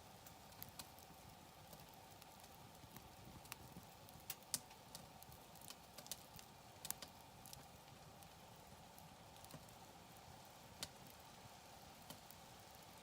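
Wood campfire crackling: irregular sharp snaps and pops, a few of them louder, over a faint steady background hiss.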